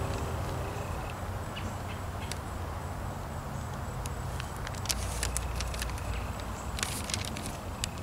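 Bible pages being turned by hand: paper rustling with short crisp flicks, bunched a few seconds in and again near the end, over a steady low outdoor rumble.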